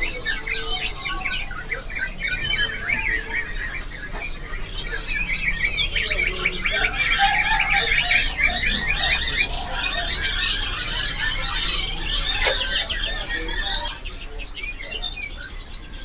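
Many caged songbirds chirping and trilling at once, a dense overlapping chorus that swells to its fullest in the middle and thins out near the end.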